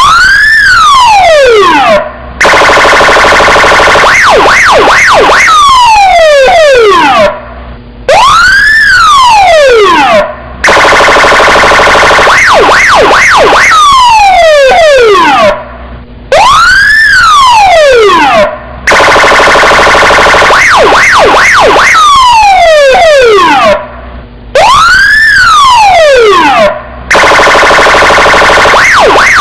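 Electronic police car siren cycling through its tones: a long rising-and-falling wail, then a fast yelp over a steady buzzing horn tone. The pattern repeats about every eight seconds, with a brief drop between passes.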